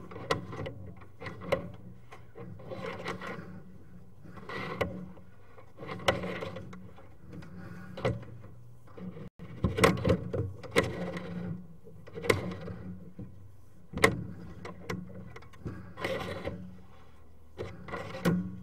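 Sewer inspection camera's push cable being fed down the drain line, giving irregular scraping and clunking every second or two with a few sharp knocks, over a steady low hum.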